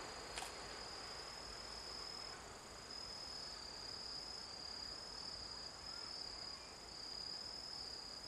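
Insects in the grass trilling steadily at a high pitch, the trill wavering in long pulses, with a single sharp click about half a second in.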